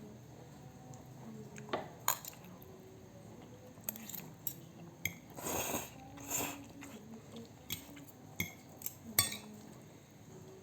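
Eating sounds: a spoon and fork clinking and scraping against a plate in scattered, irregular taps, with a longer noisy swish about halfway through.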